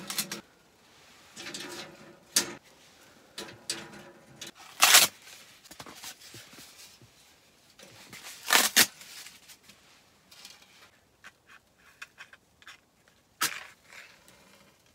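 A small stainless-steel wood stove being loaded and lit: kindling and paper rustling, with scattered sharp knocks and clicks of wood and the metal door against the firebox, the loudest about five seconds in and near the middle.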